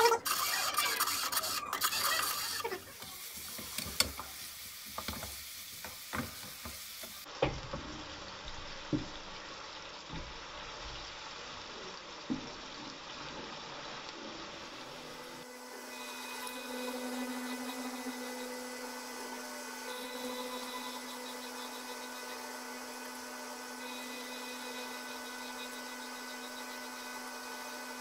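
A run of household sounds: a rotary telephone dial being turned and running back near the start; then a spoon stirring and scraping frying onions in a metal pan on a gas hob, with a few knocks; then, from about halfway, a front-loading washing machine running with a steady hum.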